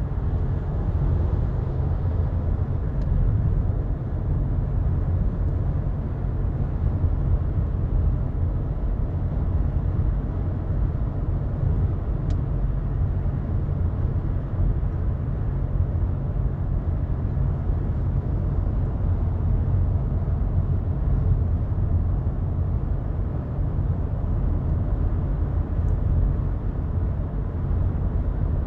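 Steady low rumble of a car in motion, heard from inside the cabin.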